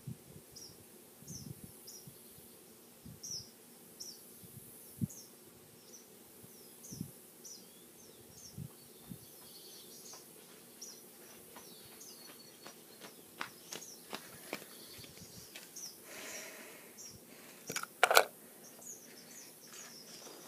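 Outdoor ambience: a small bird chirping over and over, short high chirps about once or twice a second, over a faint hiss of insects, with a few soft thumps. Near the end a brief scuffle and then a sharp loud knock.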